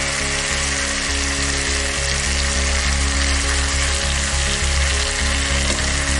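Vegetables, sauces and boiled noodles sizzling steadily in hot oil in a metal wok on a high flame, as handfuls of noodles are dropped in.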